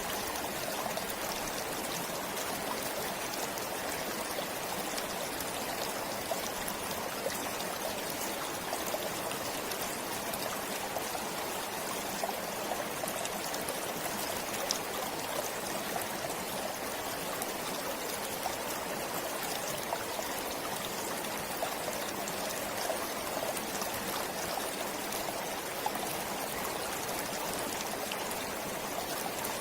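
Stream of water flowing steadily over stones, a continuous rushing with small splashes and trickles scattered through it.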